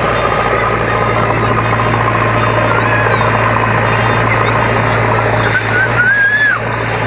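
JCB 3DX backhoe loader's diesel engine idling steadily, with a few short whistle-like calls that rise and fall, mostly in the second half.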